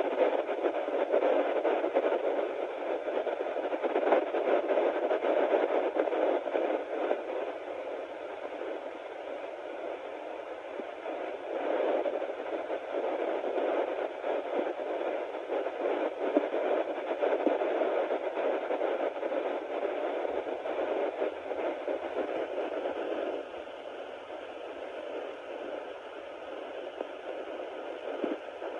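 Sonoline B handheld fetal Doppler's speaker giving a steady static-like hiss with uneven whooshing swells as the probe searches the belly. No clear, even heartbeat rhythm stands out; this is a search at 9 weeks where the user is unsure a heartbeat is being picked up.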